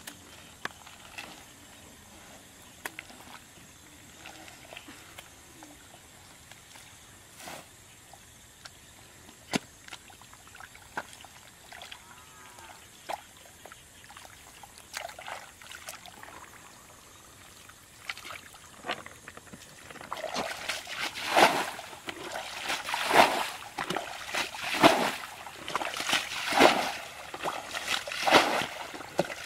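Hands working through shallow muddy paddy water, with faint squelches and small splashes. About two-thirds of the way through, a run of loud, regular splashes starts, roughly one every second and a half, as water is scooped and thrown out with a bucket.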